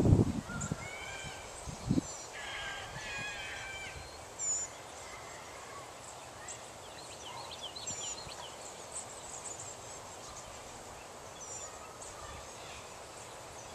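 Birds calling now and then over a faint steady background: a goose's honking dies away in the first moment, then short, high chirps and whistled notes come at scattered intervals.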